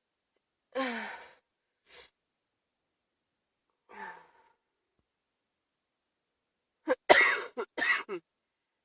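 A person with a chest cold coughing: a single cough about a second in, a short one soon after, a softer voiced one near the middle, then a quick run of four or five coughs near the end.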